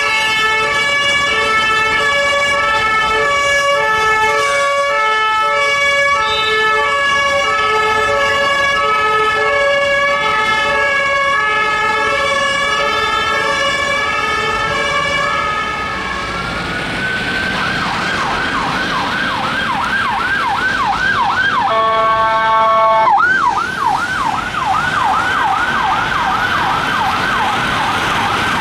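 Two-tone hi-lo sirens of Belgian emergency vehicles, alternating steadily between two notes for about the first half. Then a police car siren winds up into a fast yelp, broken by a short steady horn blast about two-thirds of the way through before the yelp resumes.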